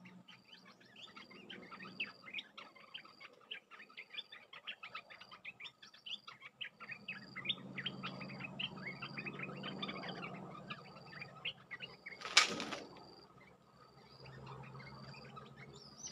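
Olive-winged bulbuls calling in a fast run of short chirps. About twelve seconds in, a sudden loud burst of wing flapping and rustling as the wild bulbul drops onto the trap cage.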